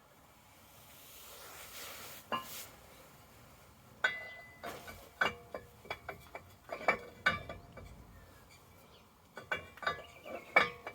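Metal brake parts and tools clinking and tapping against each other: a soft hiss and a single click in the first few seconds, then a run of sharp, ringing metallic clinks from about four seconds in.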